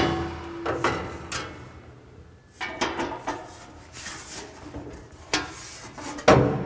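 Sheet-metal octagonal drum lid clanking against the cyclone funnel's flange as it is lifted into place and a bolt is started. It opens with a ringing metal clang, followed by scattered knocks and clicks of metal parts and hardware, and a louder knock near the end.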